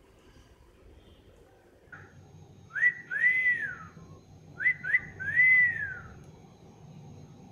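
A girl whistling two short phrases through pursed lips. Each phrase is one or two quick upward flicks followed by a longer note that rises and falls, and the second phrase comes about a second and a half after the first.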